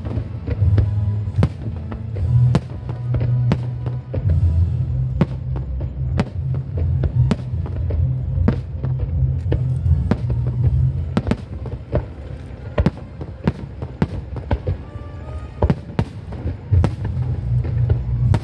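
Fireworks show: aerial shells bursting in an irregular run of sharp bangs, one to several a second, over music with a heavy, steady bass.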